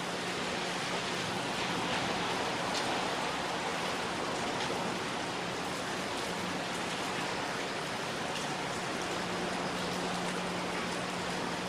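Steady rain falling, with a faint low steady hum underneath.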